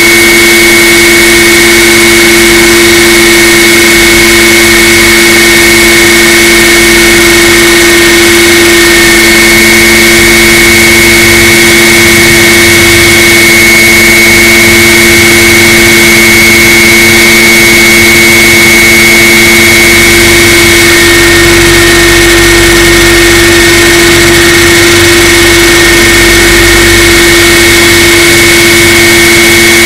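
Electric radio-control scale helicopter heard from a camera inside its cockpit in flight: a steady motor and drive-gear whine holding one pitch over rotor and wind noise, with more low rumble in the second half.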